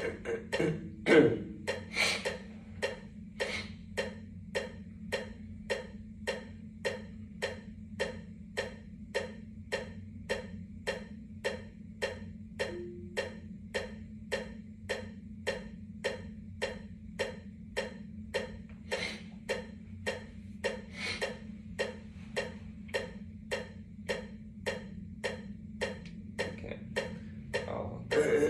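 Marimba played with yarn mallets: a simple melody struck at a slow, even pulse of about two strokes a second.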